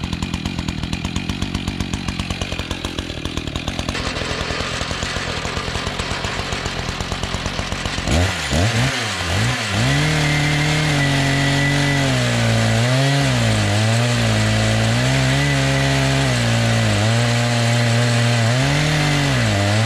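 Chainsaw on an Alaskan-style chainsaw mill idling with a rapid, even putter. About eight seconds in it is throttled up, and its engine pitch keeps dipping and recovering as the saw works under load.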